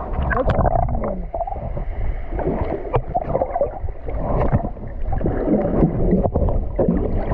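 Sea water sloshing and splashing around a camera held by a swimmer, heard muffled with a steady low rumble and frequent small knocks.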